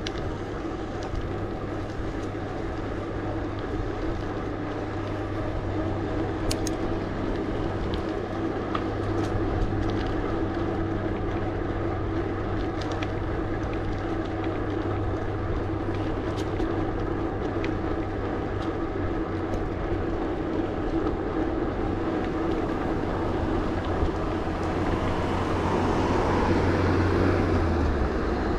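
Mountain bike rolling on a paved path: the tyres make a steady hum that drops in pitch near the end, with a few faint ticks.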